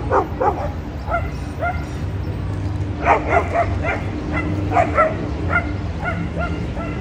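St. Bernard dog barking in short repeated calls that come in bunches, the loudest about three and five seconds in, over a steady low background hum.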